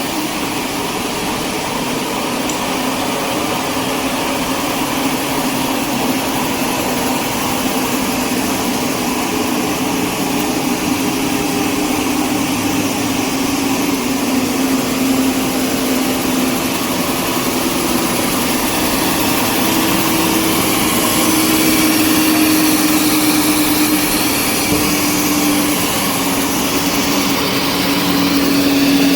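Label slitting and rewinding machine running at speed: a steady mechanical whir with a droning hum that shifts slightly in pitch, growing a little louder as it goes.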